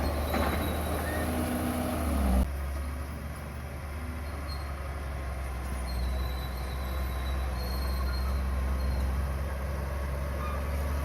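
Komatsu bulldozer's diesel engine running with a steady low drone. The sound changes abruptly about two seconds in, then carries on as a steady drone.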